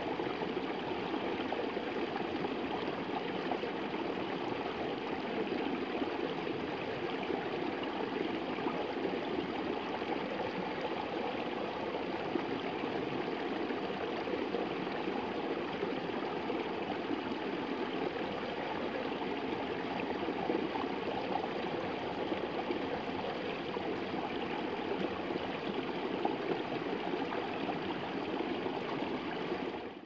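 Shallow stream running over stones, a steady babble of water.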